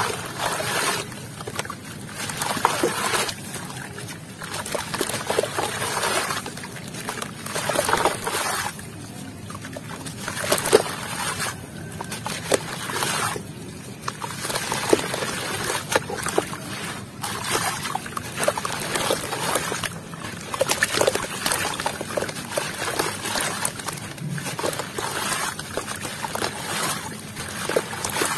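Wet, gritty sand-like lumps squeezed and crumbled by hand in a plastic tub of muddy water: irregular crumbling and crackling, with splashes and trickles as pieces and water fall back in.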